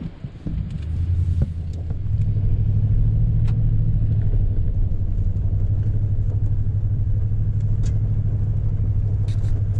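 Toyota Tundra TRD Pro's V8 and road noise while driving: a steady low drone that grows louder about two seconds in and then holds even.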